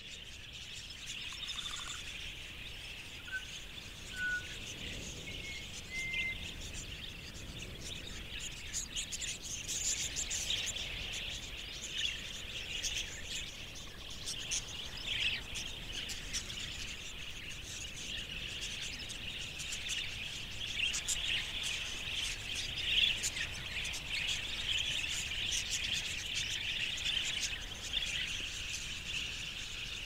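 Large flock of wild budgerigars chattering, a dense, continuous high twittering that thickens after the first several seconds, with a few short whistled notes near the start.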